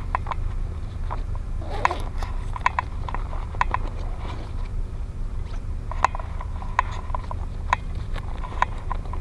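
Fishing reel clicking irregularly, a few clicks a second, while a hooked fish is being played in, over a steady low rumble.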